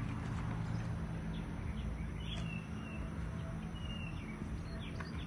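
Hands digging and shifting loose garden soil with short scratchy rustles, while a bird calls a short whistled note a few times and a low steady hum runs underneath.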